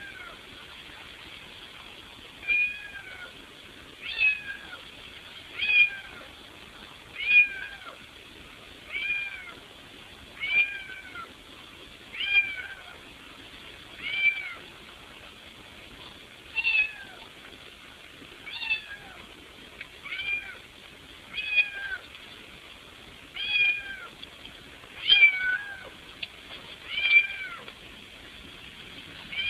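Cat meowing over and over, about sixteen meows, one every second and a half to two seconds, each rising then falling in pitch. The cat is asking to be let into the house.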